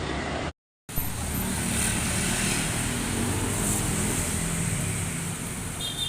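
Engine of a 2015 Suzuki Carry 1.5 pickup running steadily through a newly fitted stainless SUOS aftermarket muffler, giving a low, even exhaust note. The sound cuts out completely for a moment about half a second in, then resumes.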